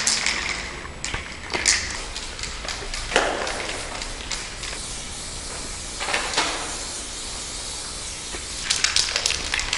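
Aerosol spray paint cans hissing against a wall in repeated bursts of different lengths, as graffiti is sprayed.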